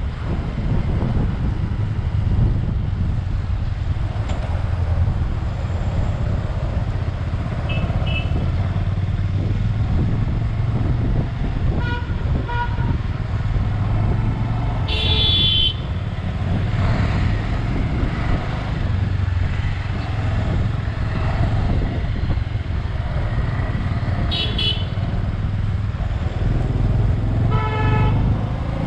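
Bajaj Avenger 220 motorcycle riding with a steady engine drone and wind rush. Vehicle horns honk briefly several times: a strong toot about halfway through and two more near the end.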